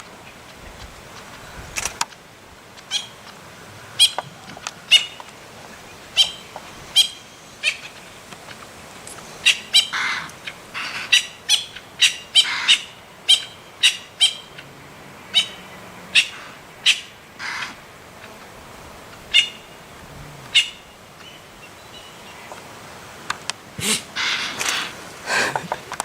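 A bird calling with short, sharp chirps repeated about once a second, then after a short pause a denser run of louder calls near the end.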